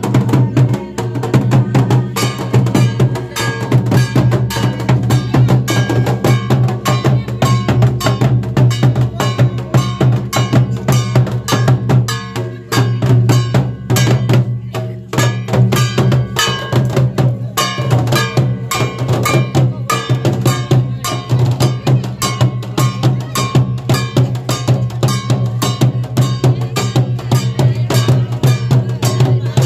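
Large double-headed barrel drums with laced heads, beaten with a stick and a bare hand in a fast, continuous rhythm, playing dong dance music.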